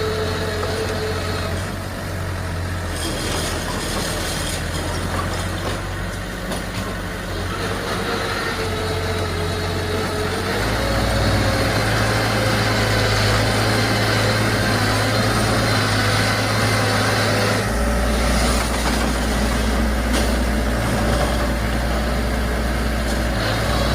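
Furukawa D20P bulldozer's diesel engine running steadily. It gets louder and a little higher about ten seconds in, as if taking on load, and shifts again near eighteen seconds.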